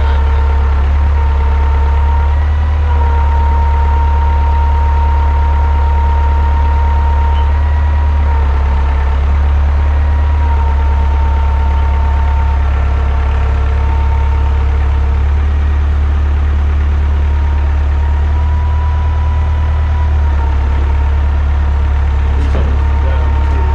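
Engine running steadily, a Frick sawmill's power unit, with a loud low drone and a steady high whine above it. A few faint clicks near the end.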